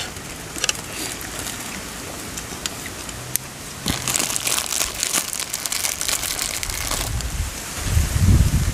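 Thin plastic food bag crinkling and rustling as hands take food from it, densest from about four to seven seconds in. A brief low hum near the end.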